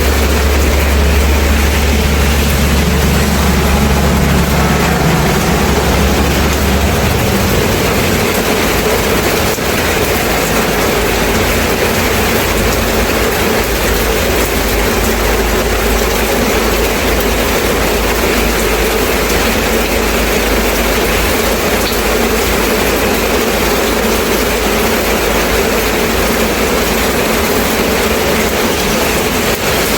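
Steady heavy rain falling, an even hiss throughout. A low steady rumble runs under it and stops abruptly about seven seconds in.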